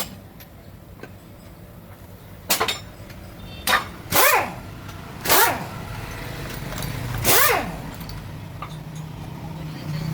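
A dog barking, about five short barks that each fall in pitch, over a low steady hum.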